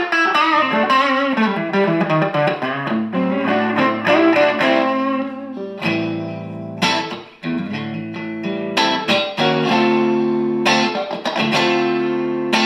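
Electric guitar on its neck pickup, a Seymour Duncan hot rail, played through the clean channel of a Dynamo GTS Flight Rig tube preamp. For the first five seconds or so it plays picked single-note lines. After that come strummed chords left to ring.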